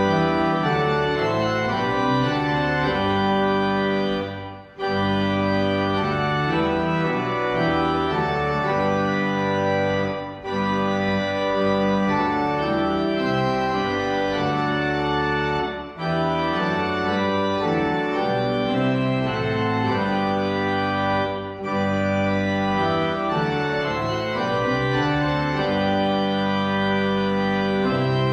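Organ playing slow, held chords as offertory music, the chords changing every second or so, with short breaks between phrases about every five to six seconds.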